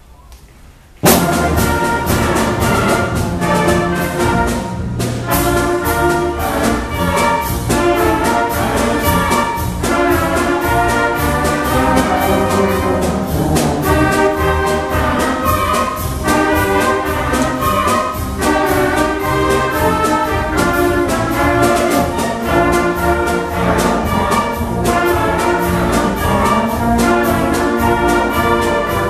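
A concert band of woodwinds, brass and percussion playing a march, striking up together with a loud first chord about a second in and going on at a steady marching beat.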